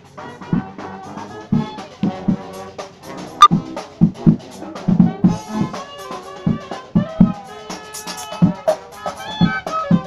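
Funky brass band playing live: trumpets and trombones holding notes over a drum beat.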